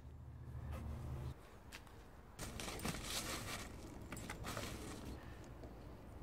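Faint footsteps and rustling in dry leaf litter, with a few crisp crunches and clicks.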